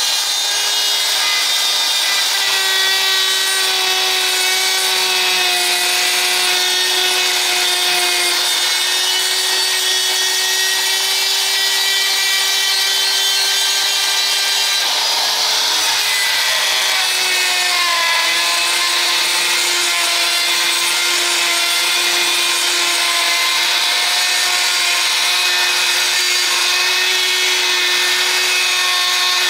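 High-speed handheld rotary tool with a sanding wheel whining steadily as it grinds out the inside of a cast iron turbocharger exhaust housing, porting the outlet. Its pitch drops slightly a little past halfway and then holds.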